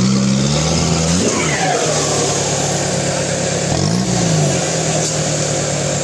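Mahindra Thar 4x4's engine running at raised revs. It drops briefly, then gives one quick rev up and back down about four seconds in, over a steady hiss.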